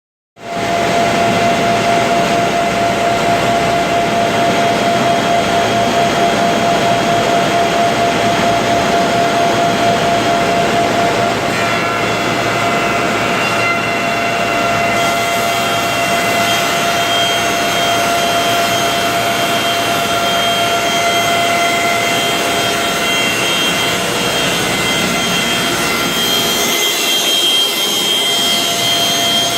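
Window-blind manufacturing machine running continuously: a loud, steady mechanical whir with a steady whine on top. About twelve seconds in, the whine changes, with new higher tones joining it.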